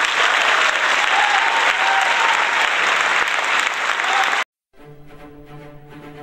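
Loud applause from a crowd that cuts off abruptly about four and a half seconds in, followed by soft instrumental music with held notes.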